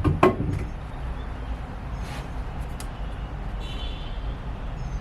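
A knock right at the start as scrap wood is handled, then a few faint clicks over a steady low rumble.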